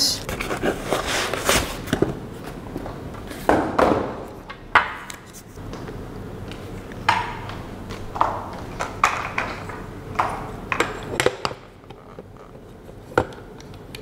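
Irregular knocks, clicks and taps of hard plastic and metal parts being unpacked, handled and set down on a glass tabletop.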